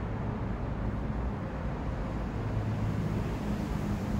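Steady low rumble of distant road traffic, with no distinct events.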